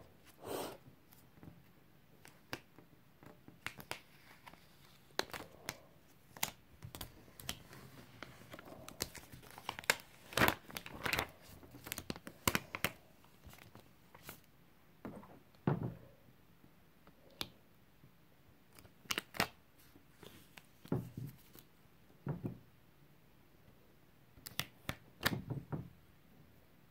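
Heat transfer vinyl being weeded by hand: the waste vinyl peeled away from its clear plastic carrier sheet, with irregular crackles, clicks and crinkles of the plastic.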